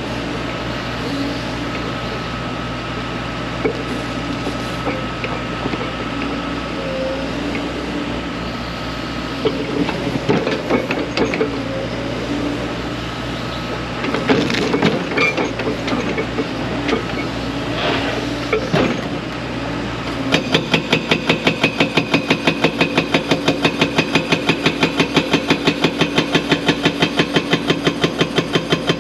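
A large excavator's diesel engine runs steadily, with scattered knocks and clanks, for about twenty seconds. Then its 4,000 lb hydraulic breaker starts hammering, a fast, even run of blows at several a second that holds until the end.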